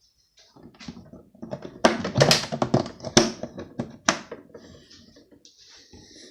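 Hard plastic clicks and knocks in quick irregular succession as fridge-freezer fittings are handled, loudest through the middle and thinning out near the end.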